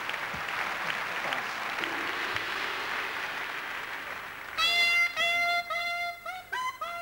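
Audience applause that fades out, then about four and a half seconds in a solo wind instrument starts playing a melody of held notes.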